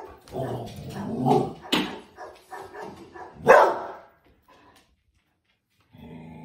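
Dog barking, a run of sharp barks with the loudest about halfway through and again a little later, then a pause and a low steady sound starting near the end.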